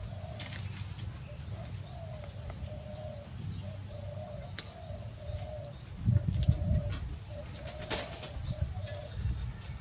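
A dove cooing over and over, each short coo at the same low pitch, about one or two a second. A few sharp clicks are scattered through it, and a brief low rumble comes about six seconds in.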